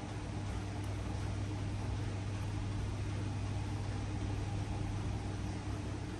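Steady low machine hum with an even hiss.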